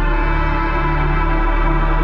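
Loud music from a truck-mounted battle sound system: long held synth chords over a heavy, steady deep bass.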